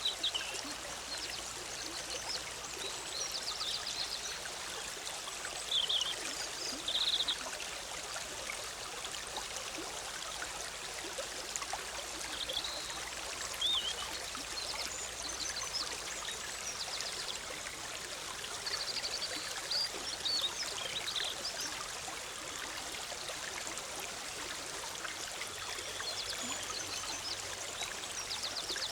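A forest stream runs over rocks with a steady bubbling rush. Short, high bird chirps come and go every few seconds above it.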